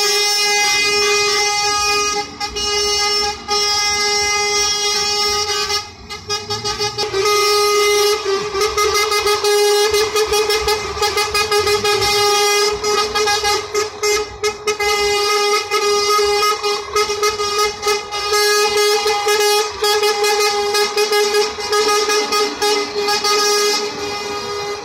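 Truck air horn sounding one steady note with overtones, held almost without a break apart from short dips about two and six seconds in. Trucks' diesel engines rumble underneath as they pass slowly.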